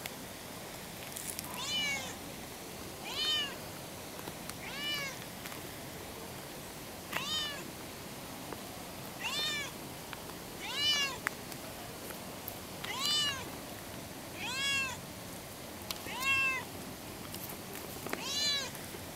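A cat meowing over and over, about ten short meows spaced a second or two apart, each rising and then falling in pitch.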